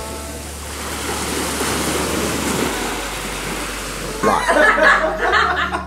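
Small sea waves washing onto a pebbly beach: a steady rush of water. About four seconds in, a louder, choppier sound rises over it for about a second.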